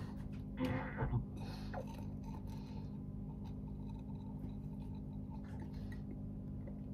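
Raw egg being sucked up through a straw from a drinking glass: a couple of short slurping sounds about a second in, then only a steady low room hum.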